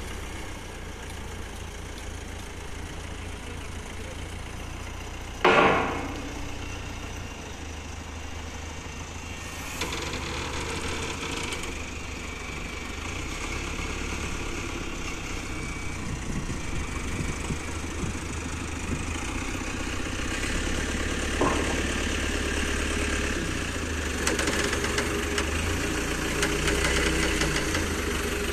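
Diesel engine of a Manitou telescopic handler running as it drives and carries a load of steel pipes on its forks, growing louder in the second half. A short, loud sound cuts in about five seconds in, and a smaller one a little past twenty seconds.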